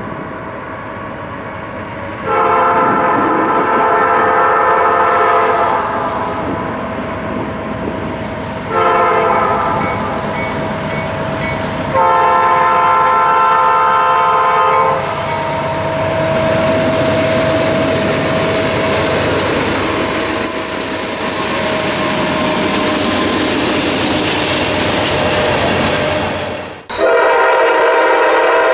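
Norfolk Southern diesel freight locomotive sounding its air horn, a chord of several tones, at a grade crossing: a long blast, a short one and another long one. After that come the steady rumble and wheel noise of the passing tank train. Near the end a second locomotive's horn starts abruptly.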